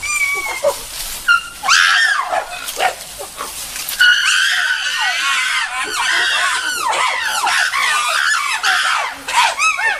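A group of chimpanzees screaming over one another in a fight among males, growing denser and louder about four seconds in.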